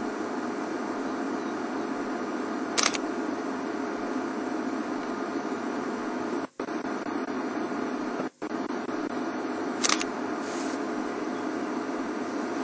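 Steady hiss with a faint hum, broken twice by brief dropouts to silence, with two short high-pitched sounds about three seconds in and near ten seconds in.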